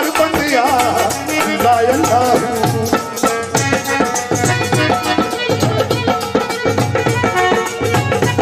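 Live Punjabi folk music. For about the first two seconds a voice sings a wavering, ornamented melody, then the instruments carry on alone with sustained notes over a steady percussion rhythm.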